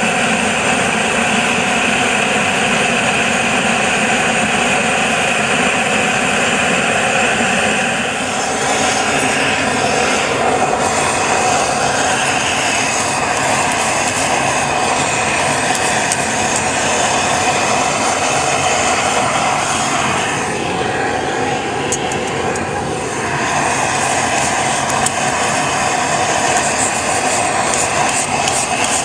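Forge air blower running steadily, a loud even rush of air into the fire. In the last seconds there are quick scrapes of a wire brush on steel.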